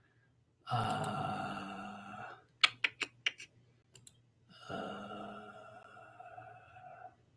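A man's voice making two long, drawn-out wordless sounds, each held for a second or two and slowly fading, with a quick run of computer clicks between them.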